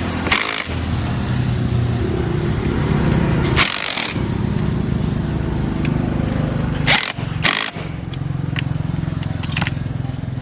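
Kubota diesel engine of a farm truck running steadily with a fast, even chug, broken by a few short hissing bursts.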